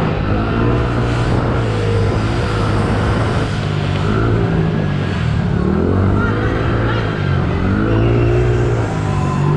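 A 50cc motocross minibike engine revving up and down, pitch rising and falling in repeated swells every second or two as the throttle is worked over the track, heard close-up from the rider's helmet camera.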